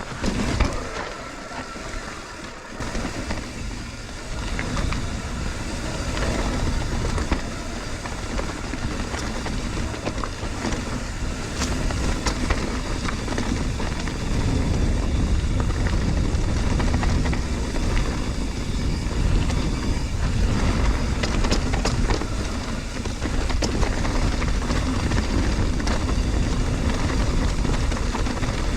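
Wind rushing over the camera microphone on a mountain bike ride, with tyres rolling over dirt and rock and the bike rattling in sharp clicks. The rush of wind grows louder about halfway through as the bike picks up speed.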